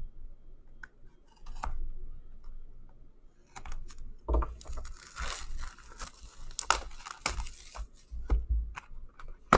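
Plastic shrink wrap being torn and crinkled off a 2019-20 Upper Deck Series One hockey hobby box, in irregular rustles and scrapes with a few sharp clicks.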